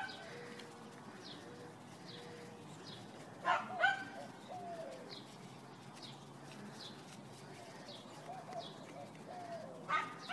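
Backyard birds: a dove giving a low, steady coo in three short pieces early on, and a small bird chirping with short falling notes over and over. About three and a half seconds in, a dog barks twice, the loudest sound.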